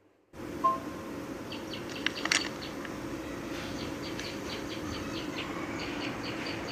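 Small birds chirping in quick, short, high notes over a steady background hum. A brief beep comes shortly after the start, and a sharp click a little over two seconds in.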